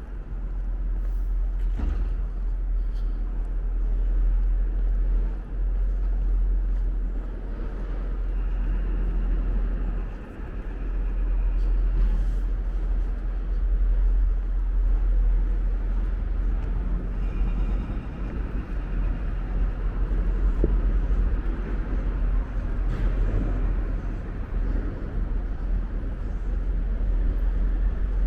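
City street ambience: vehicles passing over a steady low rumble, with passers-by talking.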